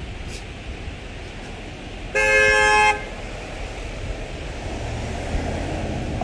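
A truck's horn sounds one short two-tone honk, just under a second long, about two seconds in. A low traffic rumble runs underneath and swells near the end.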